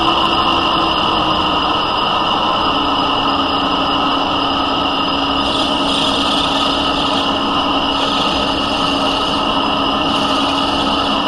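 Smithy lathe running steadily while the cutting tool takes a light cut into the spinning workpiece. Its motor hum drops slightly in pitch about two and a half seconds in, and a hiss of cutting joins from about halfway to near the end.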